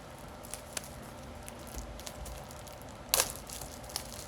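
The wrapping of a mystery dumpling squishy toy being pulled and crinkled off by hand, with scattered small crackles and one louder crack about three seconds in.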